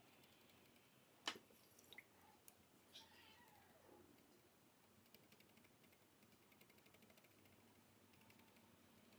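Near silence: a few faint clicks and taps, a brief falling squeak about three seconds in, then faint fine rapid ticking.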